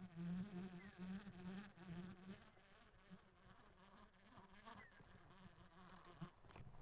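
A flying insect buzzing, its pitch wavering, loudest for the first two seconds or so and then fading to faint.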